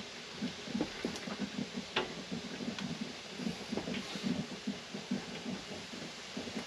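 Water-bath canner of boiling water bubbling in a steady, irregular patter as jam jars are lifted out with a wire jar lifter. A few sharp clicks come from the lifter against the glass jars.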